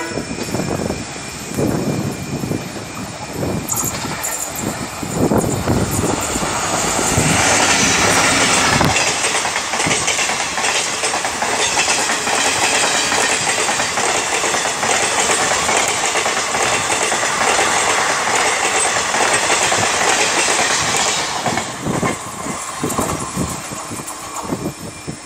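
Indian Railways passenger train passing close at speed. It starts as an uneven rumble as the train nears. From about seven seconds in comes a loud, steady clatter of coach wheels over the rail joints as the coaches rush by, easing off after about twenty seconds.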